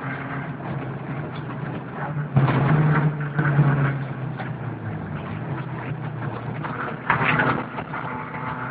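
VW Golf Mk2 rally car heard from inside the cabin, its engine running steadily under load over gravel with tyre and road noise. There are two louder surges of noise, one starting about two and a half seconds in and lasting about a second, and a shorter one near the end.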